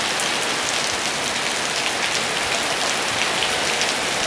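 Heavy rain falling steadily on pavement and leaves: an even hiss with scattered drop ticks.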